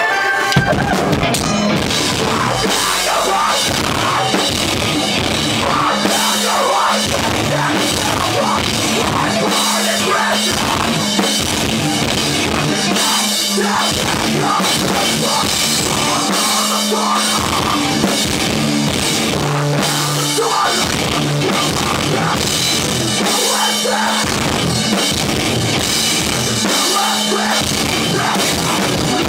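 Live rock band playing loud, heavy rock: a drum kit with crashing cymbals, close up, over distorted electric guitars and steady, shifting bass notes.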